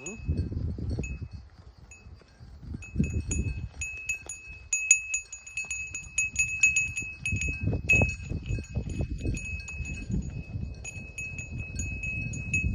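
A small bell on a walking cow clinking irregularly with its steps, a single high ring, sparse at first and quicker from about four seconds in. Low rumbling noise runs underneath.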